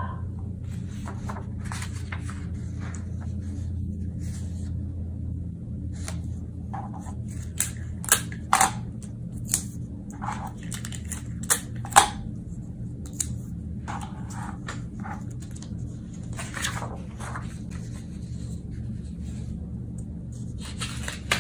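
Printer-paper pattern sheets being slid, handled and pressed flat by hand on a cutting mat: soft rustling with a few sharp crinkles and taps, loudest between about seven and twelve seconds in, over a steady low hum.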